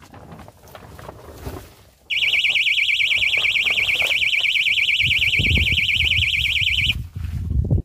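Electronic fishing bite alarm sounding a loud, fast-warbling beep for about five seconds, starting about two seconds in and cutting off near the end, signalling a fish taking the bait on a propped rod. Heavy low rumbling and thumps come in under it during its second half and run on after it stops.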